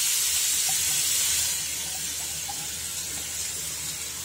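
Finely chopped vegetables (onion, capsicum, carrot, beans) sizzling as they hit hot refined oil in a kadhai: a steady hiss that eases off a little after about a second and a half.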